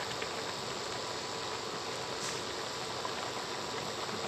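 A wok of coconut-milk lodeh with bamboo shoots and tofu boiling, the coconut milk frothing up with a steady bubbling hiss.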